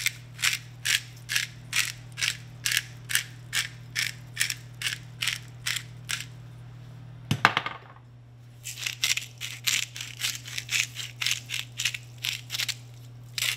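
Salt and pepper being ground or shaken over a plate of raw asparagus in quick, even, crunchy strokes, about two a second. A single sharp knock about halfway breaks the run, then a second run of strokes follows.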